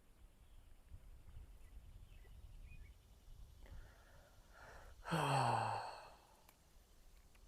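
A person breathes in and then lets out one audible sigh, about five seconds in, with a voiced tone that falls in pitch.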